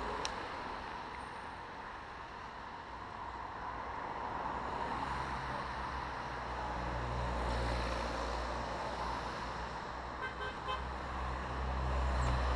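Road traffic passing steadily, with a quick run of short, high beeps from a horn about ten seconds in.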